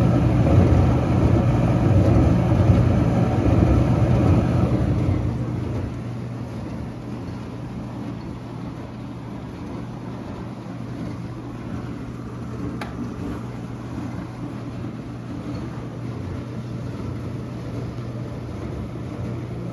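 Vintage 1984 Whirlpool DU3003XL-0 dishwasher running: a steady motor hum with a rushing, water-like noise over it. About five seconds in the sound drops to a much quieter steady hum, with one faint click later on.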